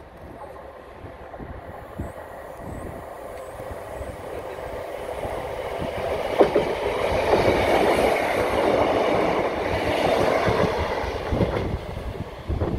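A Class 156 Sprinter two-car diesel multiple unit approaching and passing, its diesel engines and wheels on the rails growing steadily louder from about a third of the way in to a peak through the second half. A couple of sharp knocks stand out along the way.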